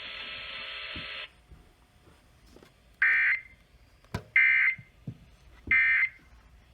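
Emergency Alert System end-of-message data code received over the radio: three short, harsh digital screech bursts about a second and a half apart, marking the close of the severe thunderstorm warning. Before them, a steady buzzy radio tone cuts off just after a second in.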